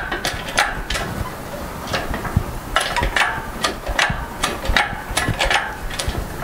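One-ton shop crane lifting a hanging air compressor: irregular metallic clanks and clicks, about one or two a second, over a low rumble.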